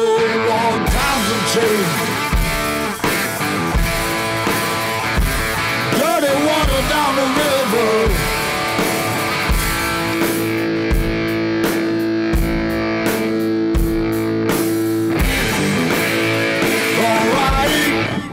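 Background rock music with guitar over a steady drum beat.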